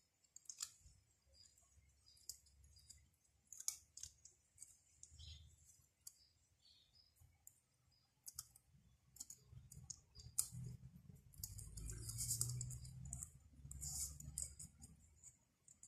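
Faint, scattered clicks and light scraping of a thin steel oil-ring rail on a VW 1.8 piston as it is spread by hand and worked around into its groove. The clicks come thicker in the second half, with a low rumble of hands handling the parts.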